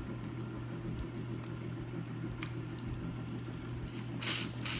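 Close-miked eating sounds: soft wet chewing of shrimp scampi with a few small clicks, and a brief louder hiss about four seconds in, over a steady low hum.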